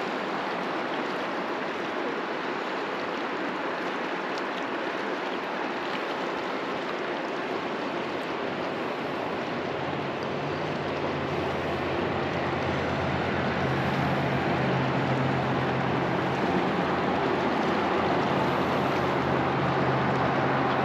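Truckee River water running fast past the rocks, a steady rush. About halfway through a low engine hum comes in and grows louder.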